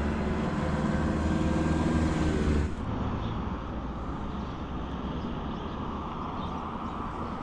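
A motor vehicle's engine running steadily, breaking off abruptly about three seconds in. A steady, quieter rushing noise follows.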